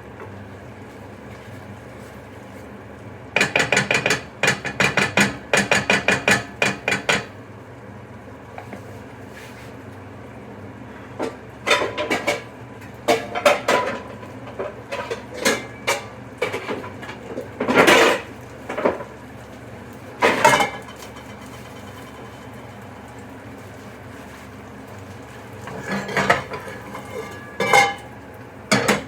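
Kitchen utensils clattering against dishes and pots: a quick run of repeated strikes at first, then scattered knocks and clinks, over a steady background hum.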